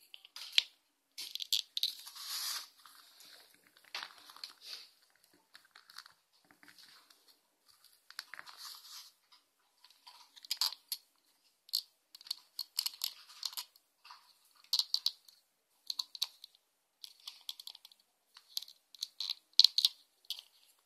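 Hands handling a small plastic toy figure and a clear plastic capsule: irregular crinkling, rustling and small plastic clicks, coming in short bursts.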